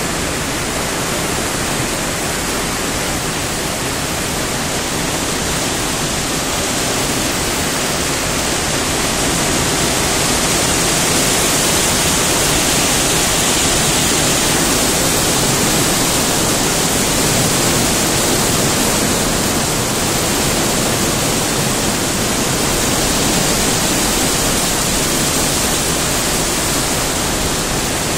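Heavy rain falling steadily, a continuous even hiss that grows a little louder about ten seconds in. There is no thunder.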